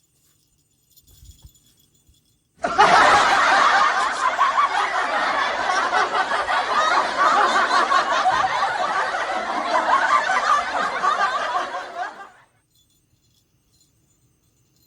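A crowd of people laughing together for about ten seconds, starting suddenly a few seconds in and cutting off abruptly, like an added laugh-track sound effect.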